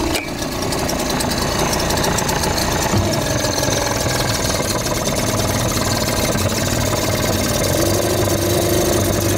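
Tohatsu 3.5 B2 single-cylinder two-stroke outboard motor, just pull-started, running steadily at idle with a rapid, even firing rhythm.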